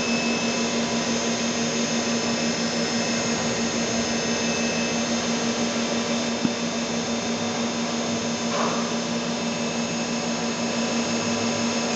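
Hardinge Bridgeport VMC650B vertical machining centre powered up and running steadily: a constant hum with thin high-pitched whines over it. A single click about six and a half seconds in.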